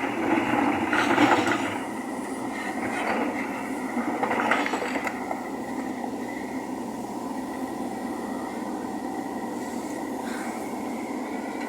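JCB loader's diesel engine running steadily with a faint steady whine, with a few louder grinding surges in the first five seconds as it works.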